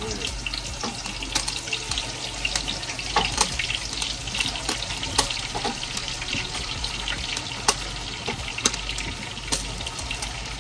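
Chicken wings deep-frying in hot oil in a large stockpot: a steady hiss of bubbling oil with frequent sharp pops and crackles.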